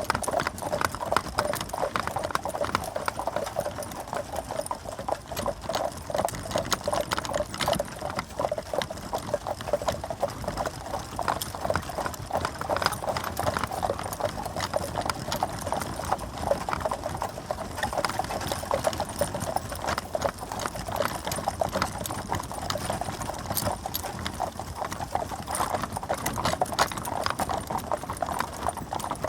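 Hooves of four horses pulling a stagecoach, a steady, continuous clip-clop of many overlapping hoofbeats.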